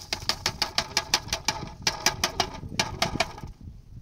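A metal spoon clinking rapidly against a metal bowl, about seven ringing strikes a second. The clinking stops about three and a half seconds in.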